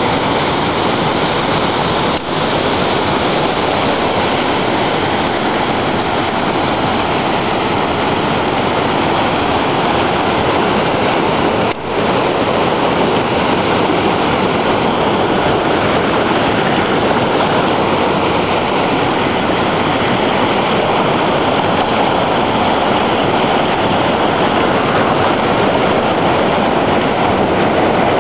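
Gooseberry River water rushing over rock ledges and rapids: a loud, steady rush, broken by two brief dropouts about two seconds in and about twelve seconds in.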